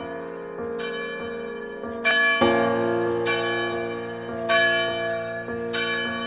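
Background music of slow, bell-like keyboard notes, a new note or chord struck about once a second and left to ring out.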